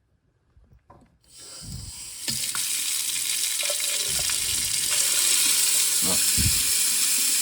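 Kitchen mixer tap turned on, its water running steadily into the sink. The flow starts about a second and a half in and swells to full within about a second, with a few low knocks under it.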